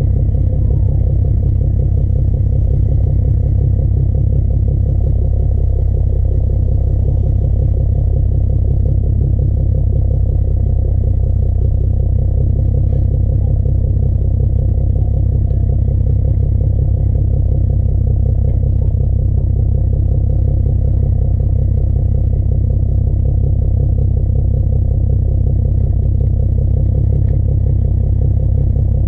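2013 Nissan 370Z's 3.7-litre V6 heard at the tailpipe through a Motordyne cat-back exhaust, running steadily with a deep, low exhaust note that holds level throughout.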